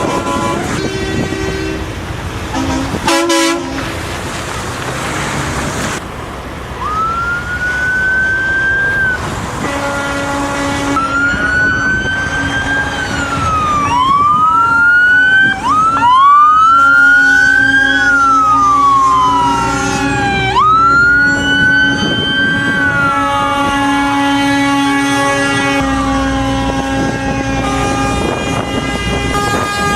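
Emergency-vehicle sirens wailing, several overlapping, each rising and then falling slowly, over truck air horns sounding long held blasts throughout.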